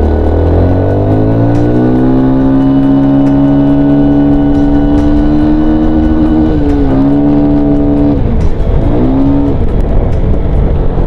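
Motorcycle engine pulling up through the revs. Its pitch climbs slowly and holds for several seconds, dips about seven seconds in, and drops off about a second later before climbing again briefly, with wind rumble on the microphone underneath.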